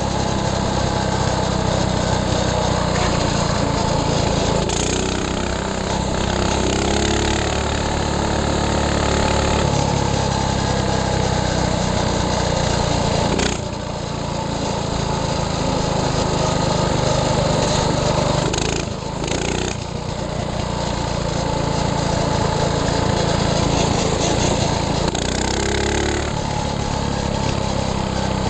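Minibike engine running steadily under way, its pitch rising and falling with the throttle, with two short dips in level about 13 and 19 seconds in.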